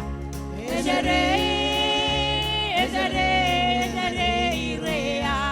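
Gospel song with a steady beat and a low bass line, and long held notes that slide up and down in pitch between the sung lines.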